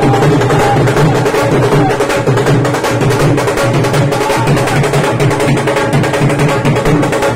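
Dhol drums beaten loudly in a fast, unbroken rhythm of sharp strikes over deep booming beats.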